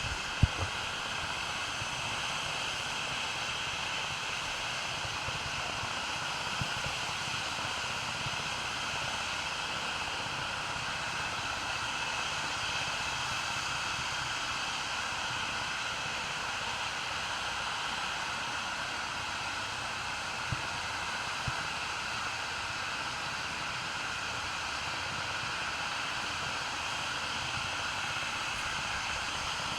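Helicopter running, a steady, unchanging engine and rotor noise with faint constant tones in it.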